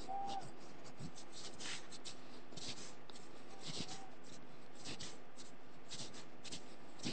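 Irregular scratchy rustling: many short scrapes at an uneven pace, several a second, over a steady low hum, with a faint voice-like call just after the start and another about four seconds in.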